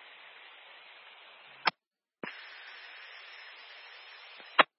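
Two-way radio on a scanner carrying two keyed-up transmissions with no voice, only static hiss. Each cuts off with a short, sharp squelch-tail burst, the first about a second and a half in and the second near the end.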